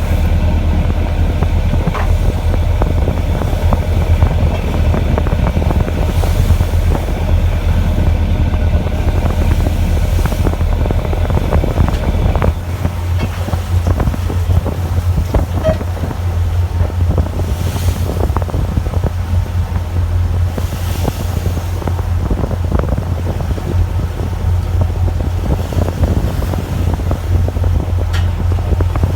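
Fishing boat's engine running with a steady low drone, with wind noise on the microphone and scattered light knocks.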